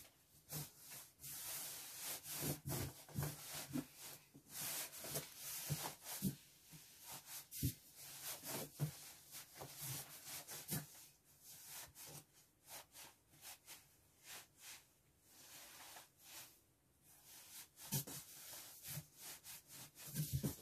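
Clothes and a pillow rustling and cardboard scraping as items are pushed and squeezed into a large cardboard shipping box, in irregular bursts with small knocks.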